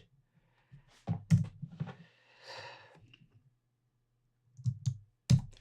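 Computer mouse clicks in a small room, a cluster about a second in and more near the end, with a soft exhale between them.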